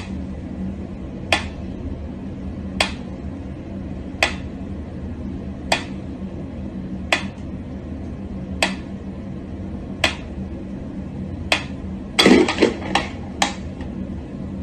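Mechanical pendulum metronome ticking slowly and evenly, one tick about every second and a half, over a steady low hum. Near the end comes a short flurry of louder knocks and clatter.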